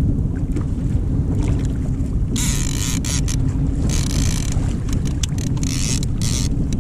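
Wind buffeting the microphone as a steady low rumble, with water splashing against a kayak three times, each splash a brief hiss about half a second long.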